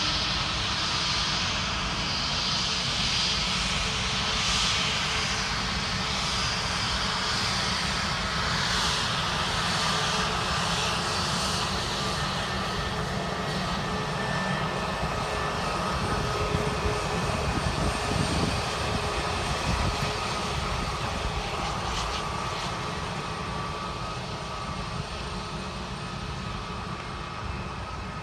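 Airbus A320neo's CFM LEAP-1A26 turbofan engines running as the airliner moves past on the runway: a steady jet roar with a hiss and a few steady whining tones. It eases off slowly over the last several seconds as the aircraft moves away.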